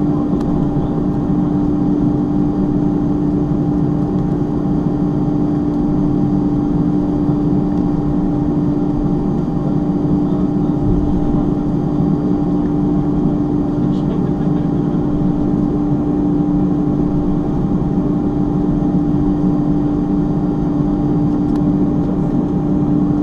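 Cabin noise of an Airbus A310-325 taxiing, heard inside the cabin: its turbofan engines and air systems making a steady drone with a constant low hum.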